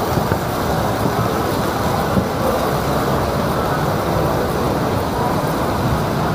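Steady low rumble of outdoor city ambience, like distant traffic, with no distinct events.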